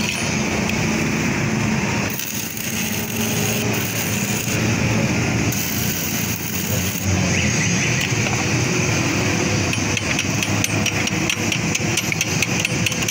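Electric arc welding on a motorcycle's kick-start lever where it meets the kick shaft: the arc crackles and hisses in two stretches of a couple of seconds each, over a steady low hum. A run of sharp taps and clicks follows near the end.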